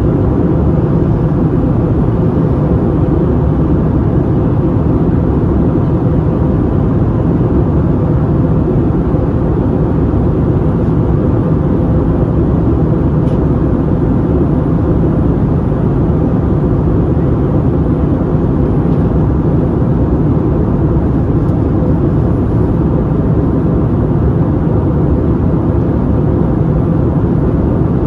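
Steady cabin noise inside an Airbus A321neo in flight, heard from a seat over the wing: the low, even rush of its Pratt & Whitney PW1100G geared turbofan engines and the airflow over the fuselage, with a faint steady hum.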